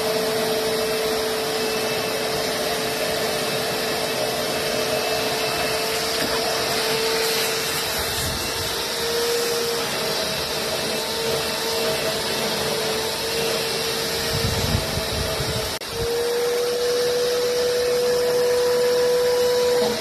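Vacuum cleaner running steadily with a whine whose pitch shifts slightly as it sucks dust and fluff from a reclining chair, briefly dropping in level about sixteen seconds in.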